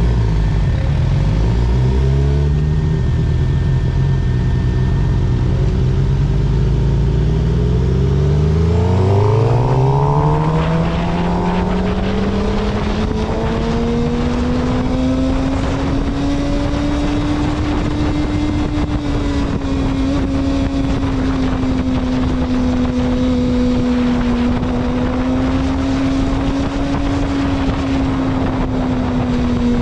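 Sportbike engine running at low revs, then rising in pitch about eight seconds in as the bike accelerates, and holding a fairly steady note at cruising speed with wind rushing past.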